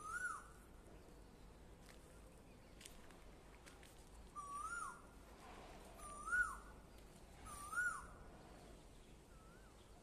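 A bird giving short whistled calls, each rising briefly and then dropping sharply in pitch: one at the start, three more about a second and a half apart in the middle, and a fainter fifth near the end.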